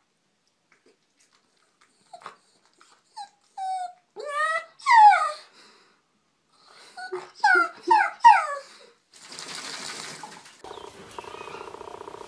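A dog whining in short cries that fall in pitch, in two bouts. About nine seconds in comes a short burst of hiss, and near the end a steady hum begins.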